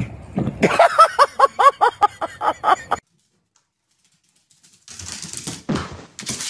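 A dog yipping in a quick run of about a dozen high barks, each rising and falling in pitch. After a sudden cut to silence come scuffling and thumps of a dog scrambling onto a couch.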